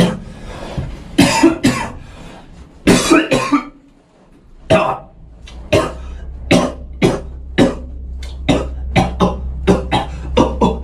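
A man coughing, first a few loose coughs, then from about five seconds in sharp coughs set into a steady beat, roughly two a second and quickening, over a steady low hum: cough beatboxing.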